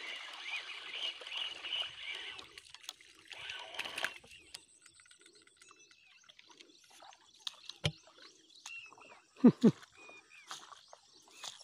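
A small snakehead (murrel) being landed on a fishing line: light rustles and clicks of handling, a sharp knock near eight seconds, then two loud thumps about nine and a half seconds in. A high chirping chorus fills the first two and a half seconds, then fades.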